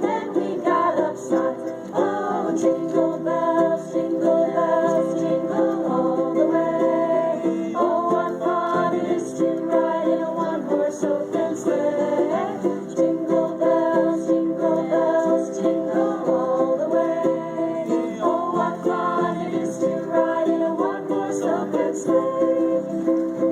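Live acoustic music: plucked string instruments playing a steady, continuous tune.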